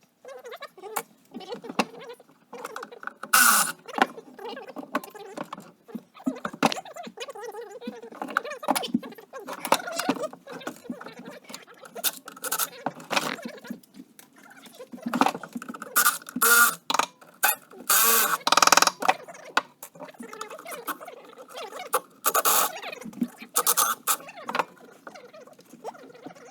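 Sped-up workshop sound from a teardown time-lapse: rapid, irregular clicks, clatter and short scraping bursts of hand tools and metal parts being taken apart, turned into a quick, chattering jumble.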